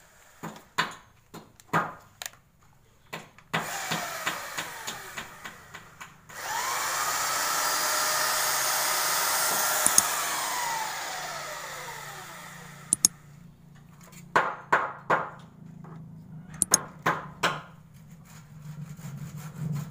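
Handheld electric belt sander switched on: its motor whine rises to a steady pitch, runs for about four seconds, then winds down as it is switched off. Sharp knocks come before it starts and again after it stops.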